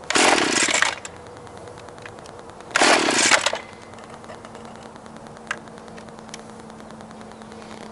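Gas string trimmer pull-started from cold: two pulls on the recoil starter, each a loud sputtering rasp under a second long, about two seconds apart. After the second pull the engine keeps running at a low, steady idle.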